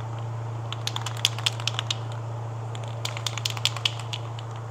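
Aerosol spray-paint can being shaken, its mixing ball rattling in two bursts of quick clicks, over a steady low hum.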